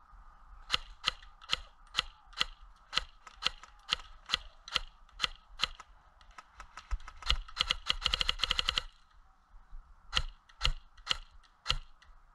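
Airsoft guns firing: a string of sharp single shots, two to three a second, then a fast full-auto burst lasting nearly two seconds, then four more single shots near the end.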